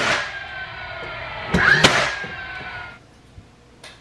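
Cordless DeWalt nailer firing nails into a pine floating shelf: one sharp shot right at the start and another just under two seconds in, each followed by the nailer's motor whine falling in pitch as it winds down.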